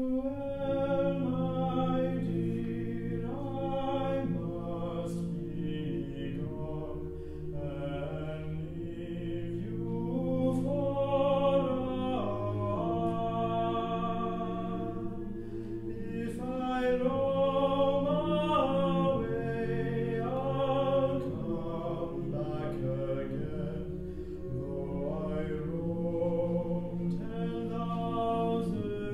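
A cappella mixed choir singing, with a male soloist carrying the melody over sustained chords held by the other voices.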